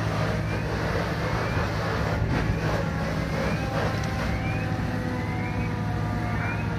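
Fire engine's diesel running steadily, driving its pump to feed the hose lines, under a steady hiss of water and steam. Short, faint rising chirps repeat over it.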